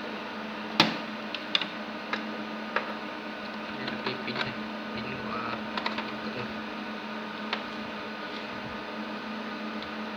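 Scattered sharp clicks and light knocks of computer hardware being handled, the loudest about a second in, over a steady electrical hum.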